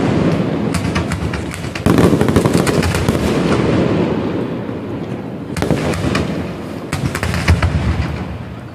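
Fireworks display: a dense barrage of bangs and crackling from bursting shells. A fresh salvo starts about two seconds in and another at about five and a half seconds, and the barrage dies down near the end.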